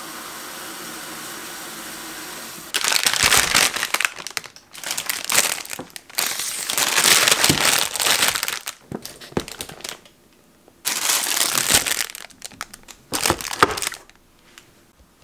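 Kitchen tap running into a steel sink, then, about three seconds in, thin plastic produce bags crinkling and rustling in loud irregular bursts as bagged groceries are handled, with pauses between.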